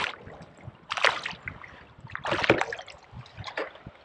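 Sea water splashing in a few short bursts beside a kayak as a small fish is reeled up to the surface and lifted out.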